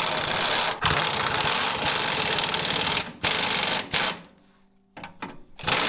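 Pneumatic impact wrench hammering, driving up a sway bar bushing bracket bolt that squeezes the new, oversized bushings down. A long burst of about three seconds, a second burst of about a second, then short stop-start bursts near the end.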